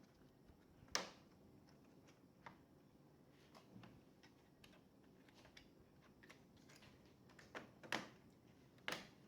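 Scattered small clicks and taps from laptop parts and tools being handled over a quiet room. The sharpest comes about a second in, and a few more come close together near the end.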